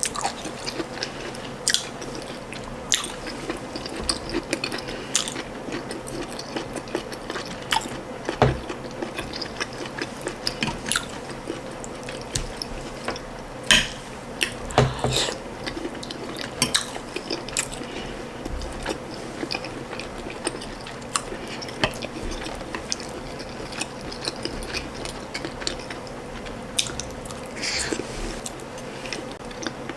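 Close-miked chewing and mouth sounds of someone eating ndole stew and boiled ripe plantain: irregular wet smacks and small clicks throughout.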